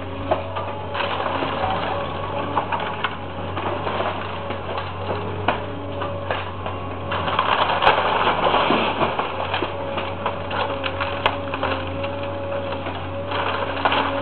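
Caterpillar excavator demolishing a house: its engine runs steadily under repeated cracking and crunching of timber and rubble, with a louder burst of crashing debris about seven to nine seconds in.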